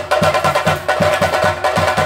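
Chenda drums beaten in a fast, steady rhythm of about four deep strokes a second, over a dense clatter of sticks on the drumheads.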